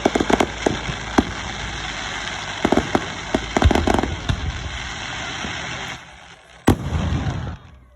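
Aerial fireworks bursting: repeated sharp bangs and crackling over a steady rumble, with one loud single bang near the end.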